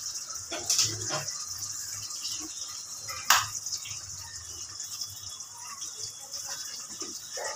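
Dried shrimp frying in hot oil: a steady high sizzle, with two sharp clicks about one and three seconds in, the second the louder.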